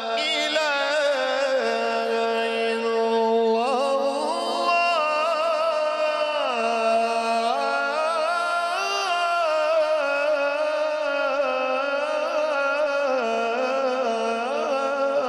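A man's voice chanting Quran recitation (tilawat) in one long, melodic, ornamented phrase amplified through a microphone. He holds notes with a trembling ornament, climbs to a higher note about four seconds in, and slides back down a few seconds later.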